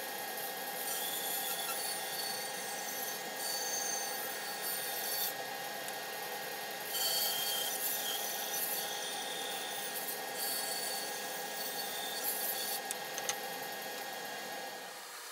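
Bandsaw running with a steady hum while its blade cuts a thick cherry board. The hiss of the cut comes and goes as the board is fed along a curve in several stretches.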